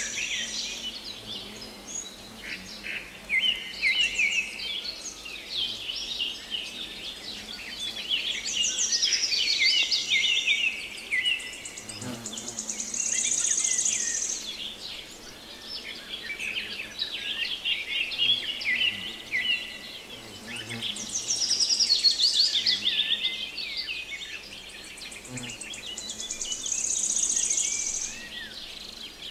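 Several songbirds singing at once, overlapping chirps and warbled phrases, with a high pulsing trill that comes and goes every few seconds.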